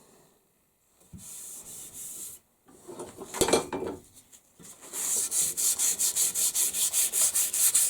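Sandpaper rubbed back and forth along a wooden axe handle. After a few scattered strokes, it settles about five seconds in into fast, even strokes at roughly four a second.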